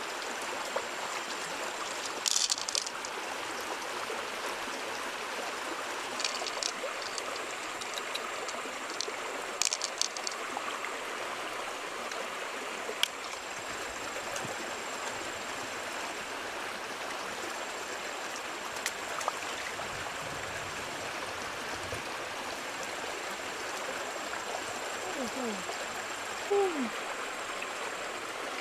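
Shallow stream running over stones, a steady rushing of water, with a few sharp clicks and taps scattered through it and a couple of short rising squeaks near the end.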